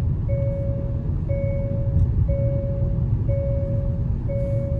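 Hyundai Creta's seat-belt reminder chime beeping about once a second, each beep held almost a second, over the steady low drone of the 1.5-litre diesel engine and tyres inside the cabin. The chime is the unbuckled-seat-belt warning that comes on above about 50 km/h; the car is coasting in sixth gear with no throttle.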